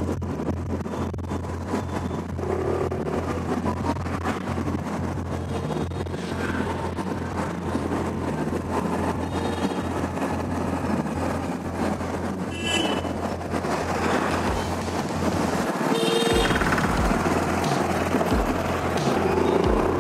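Suzuki Burgman Street 125 scooter being ridden on the road, its 124 cc single-cylinder engine running at a steady hum under an even wash of road noise. Two short high-pitched tones sound about twelve and sixteen seconds in.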